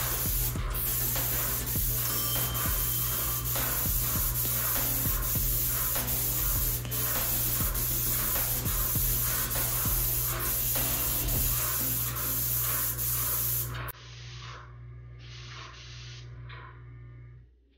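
Paint spray gun spraying enamel onto a wall: a steady, dense hiss. About fourteen seconds in it cuts off sharply and gives way to quieter stop-start spurts.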